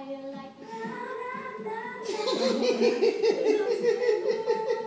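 Singing from a television, then, about two seconds in, a man's hysterical laughter breaks out and gets louder, in rapid unbroken pulses.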